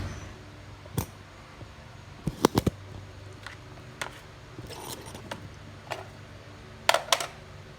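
Scattered light clicks and clinks of a small metal pick and pliers working in a lawnmower's plastic recoil starter housing, fishing out a pull rope that has retracted inside; a quick cluster of three clicks near the middle and a double click near the end.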